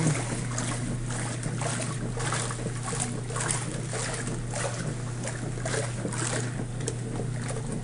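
1935 Maytag Model 30WP wringer washer running: a steady electric-motor hum under the agitator churning and sloshing soapy water and clothes in the tub.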